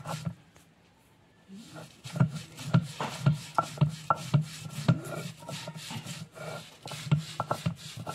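Stone roller rolled back and forth over a wet flat grinding stone (sil-batta), crushing ginger, garlic and dried chillies into a paste: gritty stone-on-stone rubbing with a knock about twice a second, starting about a second and a half in.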